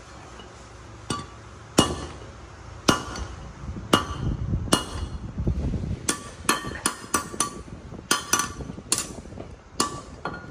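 Hammer blows on sheet metal: about fifteen sharp, ringing metallic strikes, spaced out at first and coming in quicker runs from about six seconds in, as the metal is shaped by hand.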